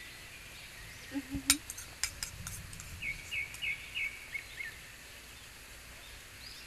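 A few sharp clicks and taps about one and a half to two and a half seconds in, then a bird calling a quick run of short repeated chirps, about three a second, over a steady background hiss.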